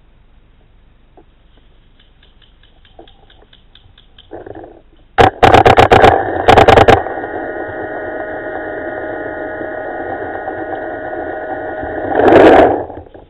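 Two quick bursts of paintball marker shots, several sharp cracks each, about five seconds in. A steady pitched tone with several overtones then holds for about six seconds and swells louder before cutting off near the end.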